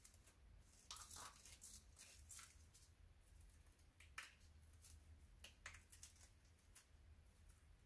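Faint, scattered scratches and clicks of a clay plug being broken up and picked out of a firework canister shell, over a low steady hum.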